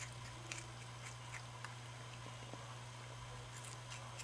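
Ring-tailed lemur biting and chewing food: a scatter of small, crisp crunches at irregular intervals, over a steady low hum.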